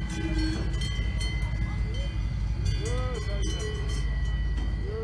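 Many cow bells ringing steadily on grazing cows, with a few short rising-and-falling calls, the clearest about three seconds in.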